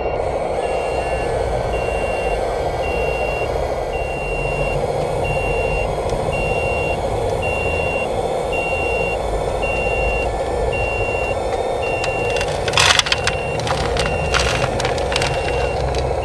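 Warning beeper on an RC model suction truck sounding about once a second over the steady hum of its hydraulic pump as the hopper tips. From about 13 seconds in, soil and stones spill out and rattle into the plastic trailer bed.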